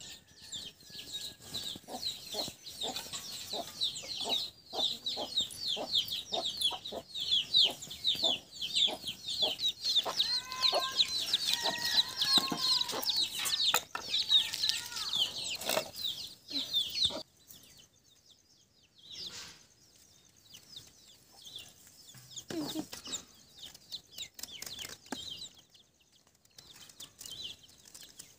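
Domestic chickens calling: a dense run of rapid, high chirps with a few longer clucking calls in the middle. It cuts off abruptly about 17 seconds in, leaving only faint scattered sounds.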